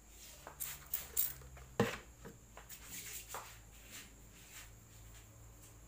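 Hands massaging a man's head and face: soft rubbing and handling with a few light clicks, and one sharper knock about two seconds in.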